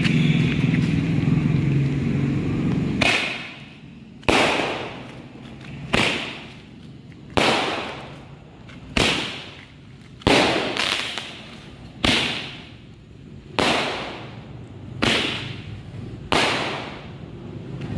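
Hand-held five-shot Roman candle firing its balls with report. A steady hiss and rumble for about three seconds, then a series of about ten sharp bangs, roughly one every one and a half seconds, each fading away with an echo.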